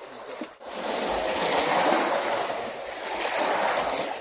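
Waves washing onto the shore, mixed with wind on the microphone; the sound starts abruptly about half a second in and swells twice.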